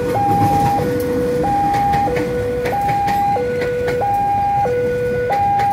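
Railway level-crossing warning alarm sounding its electronic two-tone signal, switching between a high and a low tone about every two-thirds of a second. Under it, a passenger train passing over the crossing rumbles, with the clicks of wheels on the rails.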